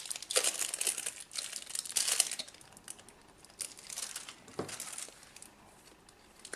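Crinkling and crackling of self-fusing silicone tape being stretched and wrapped by hand, busiest in the first two and a half seconds, then only a few scattered crackles.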